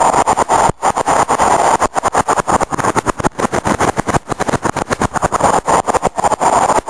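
Loud, steady rushing noise of a vehicle travelling through a tunnel, heard from inside it. The sound is choppy, cutting out for split seconds many times.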